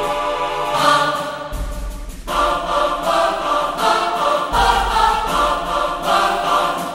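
Dramatic trailer music: a choir singing sustained chords over deep bass, changing chord a couple of times and starting to fade out near the end.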